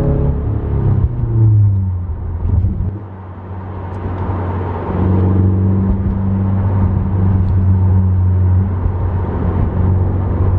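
Car engine running through an exhaust with the muffler cut out and a large tip fitted. Its pitch falls away as a rev drops in the first two seconds, then it settles into a steady deep drone that steps up a little about five seconds in.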